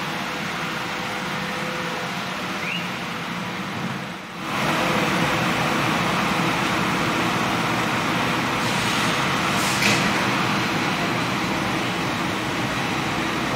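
Truck engine running and rolling noise heard from inside the cab as the truck drives slowly off a ferry deck and down the ramp. The sound drops briefly about four seconds in, then runs louder, with a short knock about ten seconds in.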